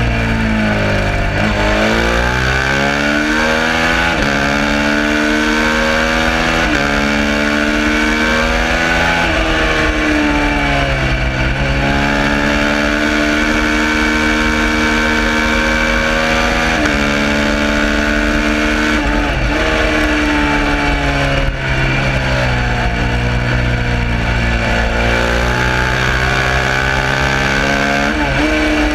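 Suzuki SV650's V-twin engine at racing speed, pitch climbing through the gears, held high and steady for several seconds in the middle, then dropping in quick steps as it downshifts for corners before rising again.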